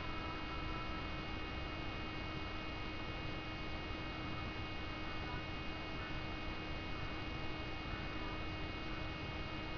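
Steady electrical hum over hiss, with a few faint constant high tones and no change throughout.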